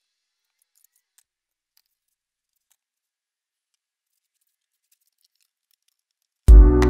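Near silence with a few faint clicks, then electronic dance music with a heavy drum beat starts abruptly near the end.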